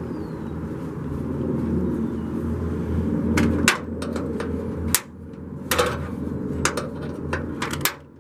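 A series of sharp clicks and knocks from plastic clips and a hand tool being worked on the underside of a car hood, starting about three seconds in, over a steady low rumble.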